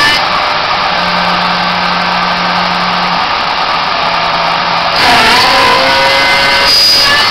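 Small CNC milling machine's spindle running with the cutter milling D16 duralumin: a loud continuous cutting noise with a steady whine. About five seconds in the tones shift and glide up and down as the machine changes its movement.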